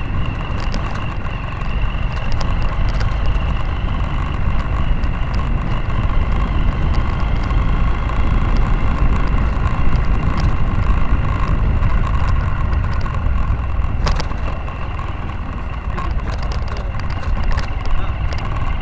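Motorcycle engine running steadily while riding over a rough dirt road, with a strong low rumble and scattered short clicks and rattles from the bumps.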